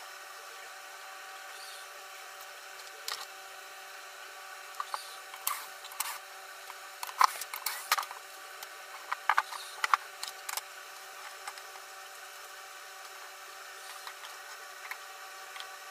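Wooden parts and hand tools of a homemade wooden pantorouter frame being handled and fitted: scattered sharp knocks and clicks, thickest in the middle, over a steady faint hum.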